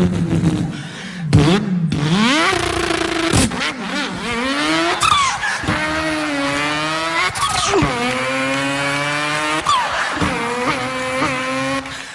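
A boy's voice imitating a car engine accelerating through the gears: a buzzing engine note climbs in pitch, then drops back and climbs again, several times over, like upshifts.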